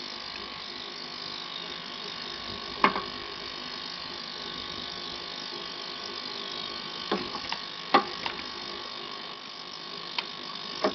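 Ultrasonic cleaning bath filled with kerosene, buzzing steadily as it cleans model-engine parts, with a few sharp clicks of the metal engine parts knocking against the stainless tank as they are handled, the loudest about eight seconds in.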